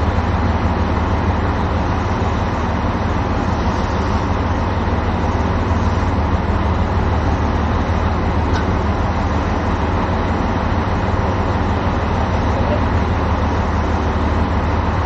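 KiHa 185-series diesel railcar idling while standing at the platform: a steady, loud low engine hum with no change in speed.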